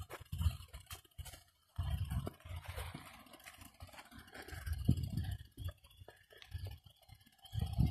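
Wind rumbling on the microphone in irregular gusts, dropping away briefly now and then.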